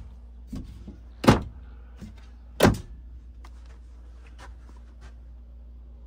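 Wooden cabinet doors in a truck camper being opened and shut: two sharp knocks, about a second in and again about a second and a half later, with a softer knock before them and a few light clicks afterwards.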